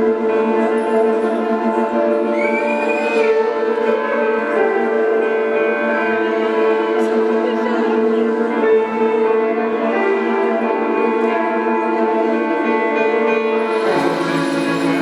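Live band music: sustained keyboard chords with long held notes layered over each other, and a brief rising tone about two and a half seconds in. The harmony shifts to a new chord about a second before the end.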